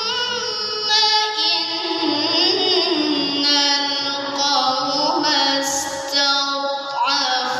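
Melodic Qur'an recitation (tilawah) in a high voice, long ornamented phrases held and wavering in pitch, with short breaks between them.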